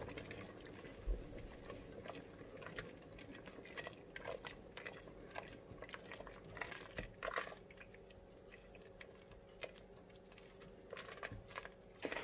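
Stirring a pot of thick rice porridge: faint wet squelching with light scrapes and taps of the utensil against the pot, on and off.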